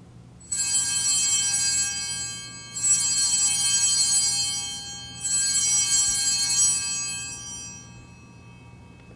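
Altar bells rung three times, each ring a cluster of high, steady ringing tones that fades over a couple of seconds. They are the bells sounded at the elevation of the chalice during the consecration.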